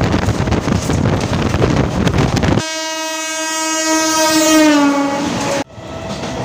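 A train running at speed with a heavy rumble and rattle. At about two and a half seconds the sound cuts to an Indian Railways electric locomotive's horn, sounding steadily for about three seconds, its pitch dropping as the locomotive passes. Near the end it cuts again to quieter running noise inside a passenger coach.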